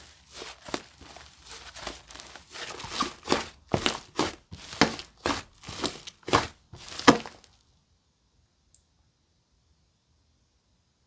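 Hands stretching and pressing a clear slime mixed with clay and snow powder, giving a run of sharp crackles and pops that grow louder and stop abruptly about seven and a half seconds in.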